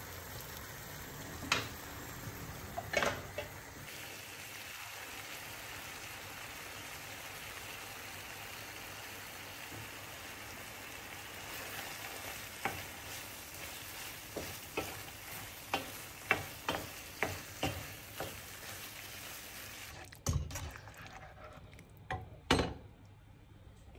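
Food sizzling in a frying pan while being stirred, with a spoon knocking against the pan repeatedly. The sizzling cuts off about twenty seconds in, followed by two louder knocks.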